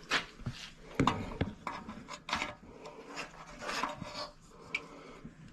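Several short rubbing and scraping noises of close handling, with a quieter stretch near the end.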